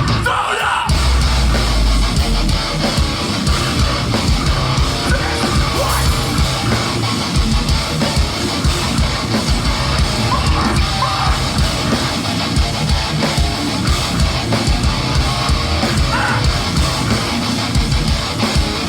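Heavy metal band playing live at full volume: distorted electric guitars over dense drumming.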